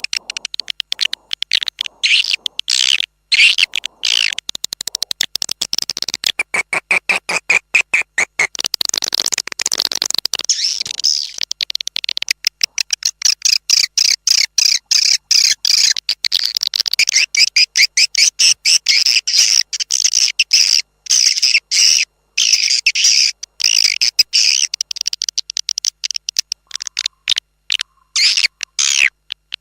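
Swiftlet-farming lure call: dense, rapid trains of high chirping swiftlet calls, the 'external' sound played outside a swiftlet house to draw edible-nest swiftlets in. A lower-pitched stretch comes about a third of the way in.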